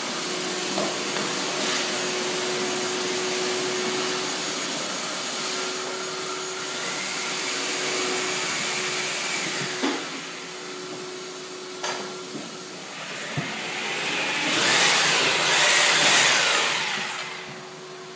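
A vacuum cleaner with a long hose and floor wand runs steadily, its motor giving a constant hum under a rushing hiss. Partway through it drops quieter, and near the end a louder, harsher noise swells and fades.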